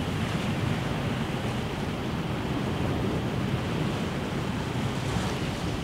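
Sea washing against a rocky shore, with wind buffeting the microphone: a steady rushing noise with a low rumble.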